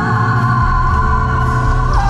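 Live pop ballad music: a female singer holds one long high note over the band's accompaniment.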